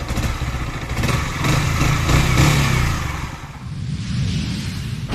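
Yamaha R15 V3's single-cylinder engine running, revved up about a second in and held for a couple of seconds before dropping back, then blipped again more lightly.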